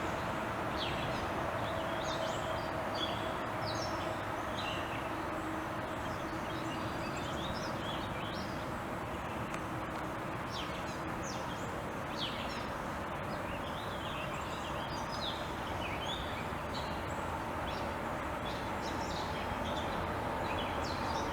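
Small birds chirping repeatedly in short, high calls over a steady outdoor background noise.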